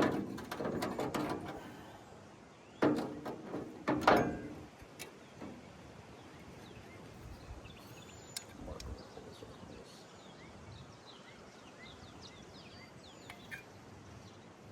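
A few knocks and scrapes of parts and tools being handled in the first four seconds, then faint outdoor background with small birds chirping.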